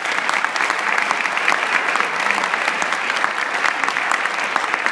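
Audience applauding: many people clapping steadily, filling the room.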